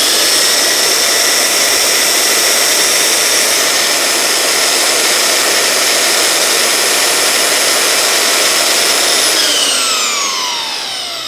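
Makita 9403 4x24-inch belt sander running free, off the workpiece: a loud, steady motor whine with the belt whirring. About nine seconds in it is switched off and winds down, its pitch falling.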